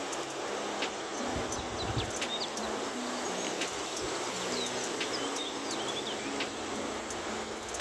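Outdoor ambience with a steady rushing hiss and a few faint bird chirps near the middle, along with scattered light ticks.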